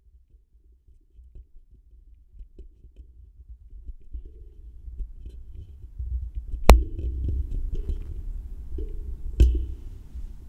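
Noise floor of a Blue Raspberry USB microphone, a low hum and rumble, growing steadily louder as the mic's gain knob is turned up. Two sharp clicks come partway through, about three seconds apart, and are the loudest sounds.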